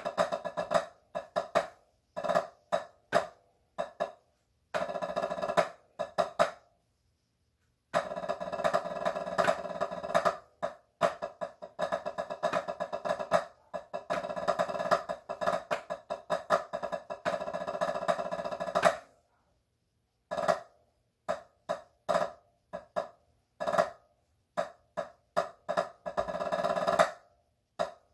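Wooden drumsticks on a practice pad playing a rudimental snare drum solo: groups of crisp separate strokes, then a long stretch of rapid, roll-like strokes in the middle. The playing stops briefly twice, for about a second each time.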